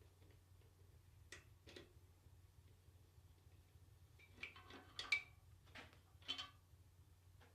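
A few light clinks and knocks of small metal transmission parts being handled, over a faint steady low hum.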